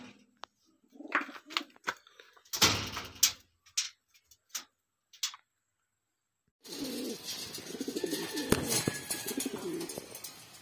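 King pigeons cooing: about two-thirds of the way in, a continuous run of low, wavering coos starts over a background hiss. Before that there are only scattered short clicks and taps.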